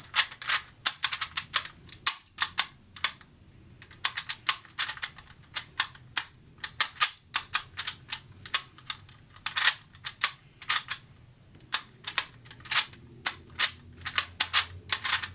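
QiYi magnetic Clock puzzle being speed-solved: its dials and pins clicking sharply in quick irregular runs of several clicks a second, with short pauses between runs.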